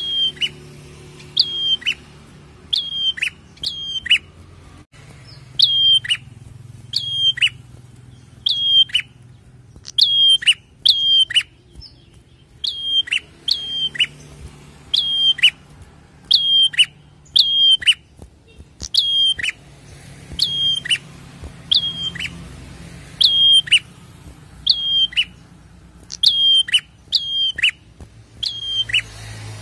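Caged prenjak calling over and over: a sharp, high chirp about once a second, each note dropping steeply in pitch, often in quick pairs, with a couple of brief pauses.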